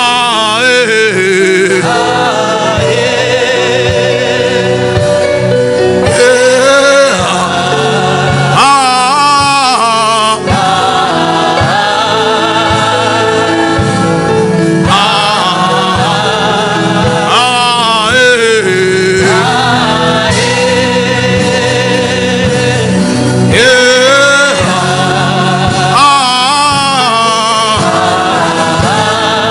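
Gospel worship music: sung phrases with heavy vibrato, no clear words, over a sustained chordal backing.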